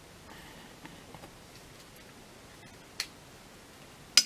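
Plastic action figure being handled, with two sharp clicks: one about three seconds in and a louder one near the end.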